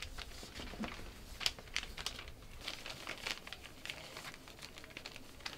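Paper wrapping of a present crinkling and rustling in irregular crackles as it is handled and opened.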